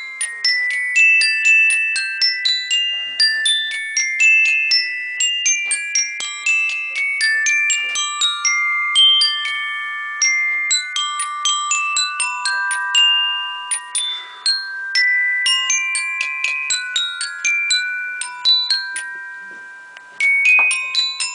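Robot-played metal-bar xylophone striking random notes, several a second, each note ringing on and overlapping the next, with no melody. There is a brief lull near the end before the strikes resume.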